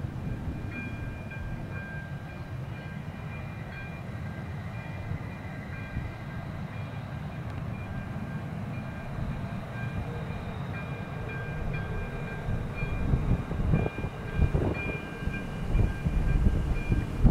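Freight train of car-carrier wagons hauled by a pair of Škoda 'laminátka' electric locomotives passing: a steady low rumble with a faint steady whine from the locomotives. It grows louder over the last few seconds as the wagons roll by with irregular clatter.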